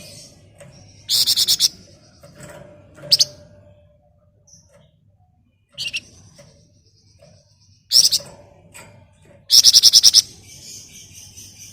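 Flamboyan songbird calling in short, loud bursts of rapid, dense rattling trills ('ngebren') and sharp chattering ('nyerecet'), four bursts in all with quieter high calls between. The last burst, near the end, is the loudest: a run of fast, even pulses lasting under a second.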